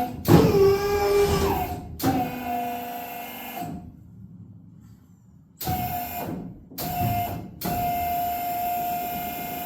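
Electric pump of a hydraulic suspension whining in bursts, stopping and restarting several times, with a quiet gap of about two seconds in the middle; each run holds a steady high hum.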